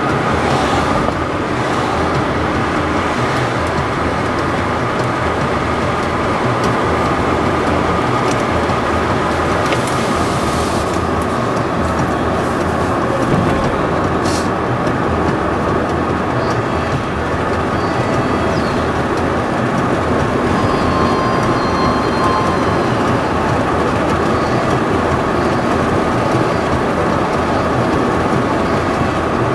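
Steady road noise heard inside a moving car's cabin: tyres on the pavement and the engine at cruising speed.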